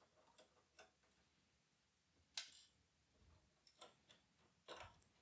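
A handful of faint, scattered clicks and light knocks from computer expansion cards being handled and set down, the loudest about two and a half seconds in.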